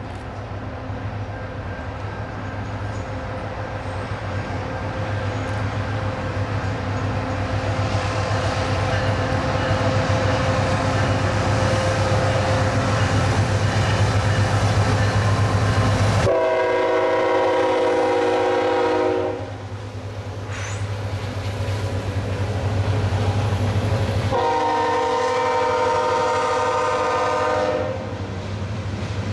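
Canadian National freight train led by a GE ET44AC and an EMD SD70M-2 approaching and passing: the diesel engines and the rolling wheels build to a loud, steady rumble. The lead locomotive's horn sounds two long blasts of about three seconds each, one about halfway through and one near the end, as the cars roll by.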